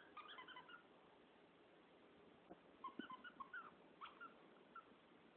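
Siberian husky whimpering softly: faint, short, high squeaks in a quick run at the start and again scattered about halfway through, with a couple of faint clicks between.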